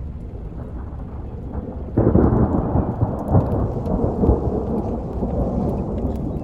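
Thunder from a nearby lightning strike: a sudden loud clap about two seconds in, rumbling on and slowly fading over the next few seconds.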